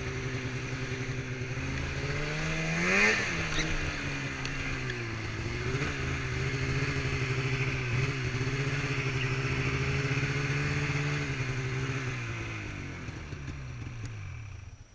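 Snowmobile engine running, revving up sharply and falling back about three seconds in, then holding a steady speed. It fades over the last few seconds and cuts off abruptly at the end.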